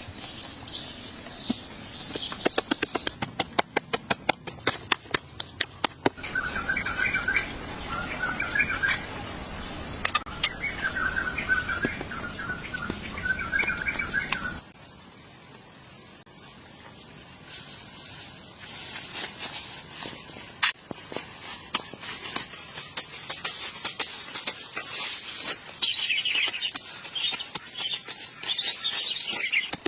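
Birds chirping in short repeated calls, with a run of quick knocks and clicks in the first few seconds and scattered clicks later on.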